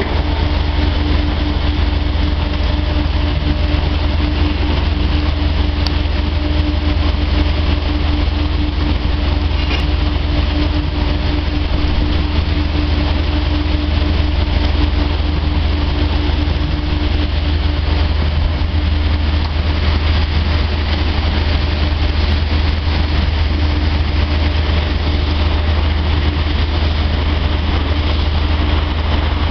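Heavy machinery running steadily, a loud deep hum with a steady tone above it and no change in speed.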